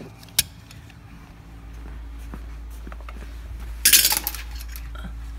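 Metal hand tools being handled, clinking: a sharp click soon after the start, then a brief loud clatter about four seconds in, over a low steady hum.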